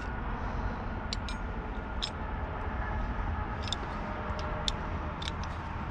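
A few light metallic clicks, scattered, as a dog-proof raccoon trap and its chain are handled, over a steady low rumble.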